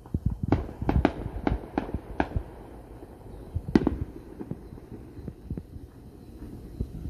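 Fireworks going off: a quick run of sharp bangs in the first two and a half seconds, then one louder bang a little before the four-second mark, with a low irregular thumping underneath.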